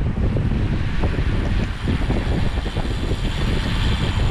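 Wind buffeting the microphone of a camera carried on a road bike riding at speed, with road noise from the tyres on asphalt: a loud, unsteady rush heaviest in the low end.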